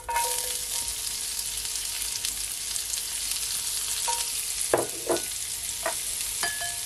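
Sliced onions hitting hot oil in a cast-iron pot, sizzling at once and then frying with a steady hiss.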